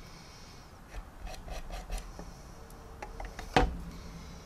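Quiet scratchy rubbing of a paintbrush working oil paint over the plastic model, with a single sharp knock about three and a half seconds in.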